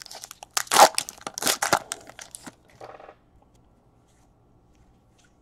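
Stiff baseball trading cards being slid and flipped against one another: a quick run of sharp rustles and scrapes over the first two and a half seconds, then quiet.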